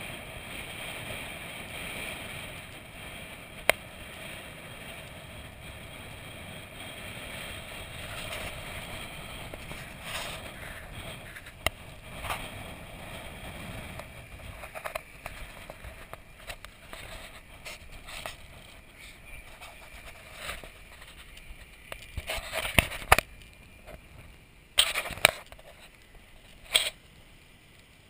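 Range Rover moving slowly over sand dunes: a steady rush of engine and tyre noise, with scattered sharp clicks and several loud knocks near the end.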